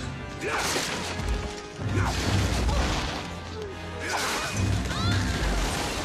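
Film soundtrack of a sword fight: heavy crashes of sword blows and breaking wood, three big hits about half a second, two seconds and four seconds in, over an orchestral action score.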